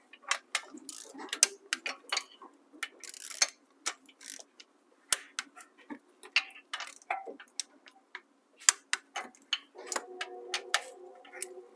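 Torque wrench ratcheting in short, uneven strokes, a quick run of sharp clicks, as the cylinder head bolts of a HEMI 5.7 V8 are tightened to 25 foot-pounds. Background music comes in near the end.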